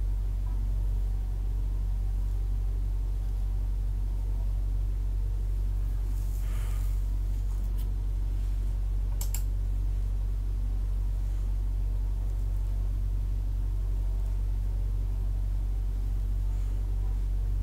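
Steady low hum in the room tone, with a couple of faint clicks about halfway through.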